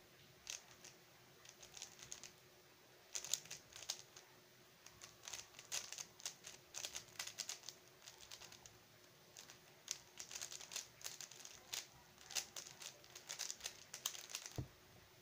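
Stickerless 3x3 speedcube turned at speed during a timed solve: bursts of rapid plastic clicking and clacking, with brief pauses between bursts. A single low thump comes near the end.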